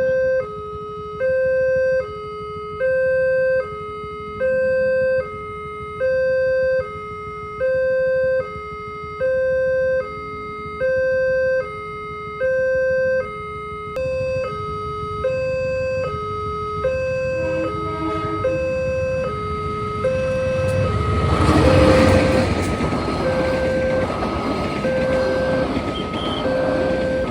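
Railway level-crossing warning alarm sounding a steady electronic two-tone signal, alternating between a higher and a slightly lower tone about every three quarters of a second, as it does while the gates are down for an approaching train. About 21 seconds in, the loud rumble of a passing train rises under the alarm and continues.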